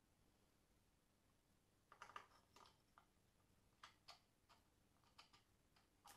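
Faint, irregular clicks and light taps, about a dozen over some four seconds, from hand tools and bolts being handled while fitting an engine's intake manifold.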